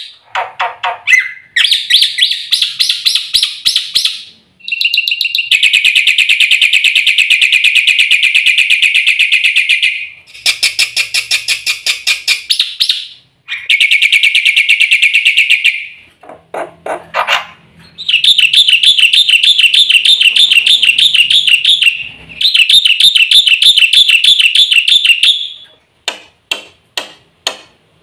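Black-winged myna (jalak putih) singing loudly: long runs of fast repeated notes, several seconds each, alternating with choppy chattering phrases and brief pauses.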